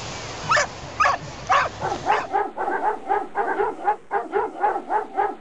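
Dog barking: three separate barks half a second apart over the wash of surf, then the surf drops out and a quick, even run of short barks follows, about three a second.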